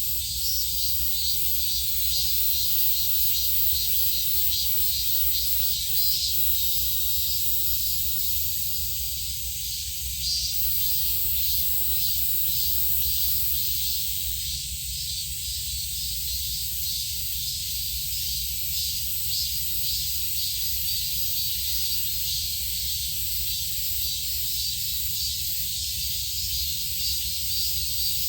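Steady high-pitched chorus of insects with a fast pulsing, over a low rumble.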